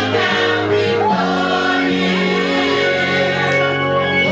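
Church choir singing a gospel song, with long held notes.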